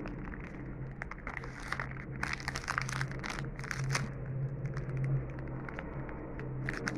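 Crinkling and crackling of a plastic snack wrapper being handled, in dense clusters over the first few seconds and again briefly near the end. A steady low hum runs underneath.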